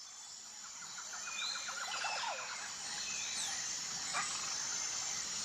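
Outdoor ambience fading in: a steady high hiss with birds chirping over it. The chirps are short and gliding, with a quick trill about a second and a half in.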